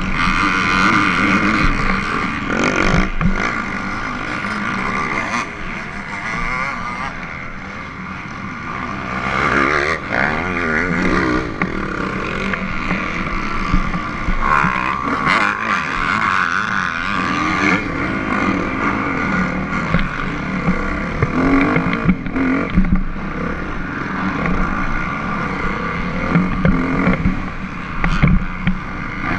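Motocross dirt bike engine running hard around a dirt track, heard from on the bike. The pitch rises and falls repeatedly as the rider accelerates and backs off through corners and straights.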